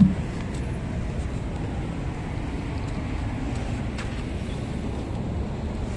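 Steady low rumble of a CMC D270 refrigerator van running, with a short thump right at the start.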